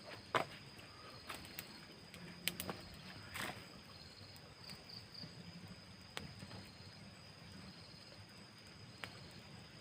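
Night insects, crickets among them, chirring in a steady high-pitched trill, with a few short faint sharp sounds scattered through.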